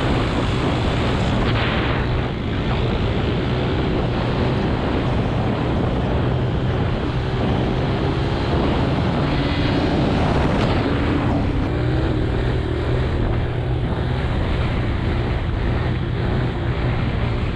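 Honda CRF150 dirt bike's single-cylinder four-stroke engine running steadily at road speed, its note shifting a little about halfway through, with wind rushing over the microphone.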